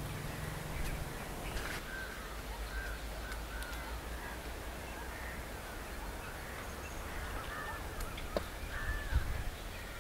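Crows cawing now and then over a low steady rumble.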